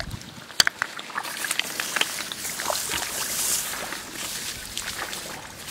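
Rice stalks rustling and snapping, and shallow paddy water being disturbed, as hands push through the plants. Many sharp clicks and crackles, with a louder rustling hiss about three seconds in.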